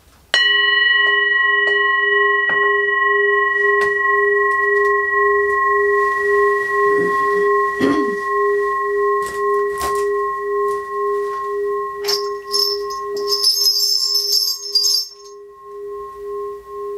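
A large brass singing bowl struck once with a wooden stick about half a second in, then ringing on with a deep, gently wavering hum and several higher overtones. From about twelve to fifteen seconds a bright, high metallic jingle sounds over the ringing, with light knocks of handling.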